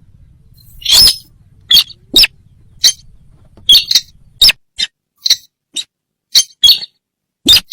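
Sintar bird lure call: a series of short, sharp, high-pitched calls repeated irregularly, about two a second.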